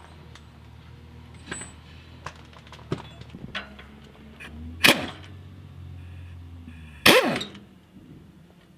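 Pneumatic impact wrench on an air hose fired in two short bursts, about five seconds in and again about seven seconds in; the second is longer and ends in a falling whine. Light metal clinks of parts being handled come before.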